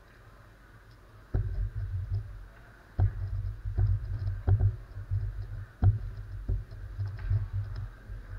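A magnetic X-Man Galaxy Sculpted megaminx being turned fast in a speedsolve: quick clacking plastic turns, with low knocks from hand and cube movement carried through the table. The turning starts about a second and a half in and pauses briefly just before the three-second mark.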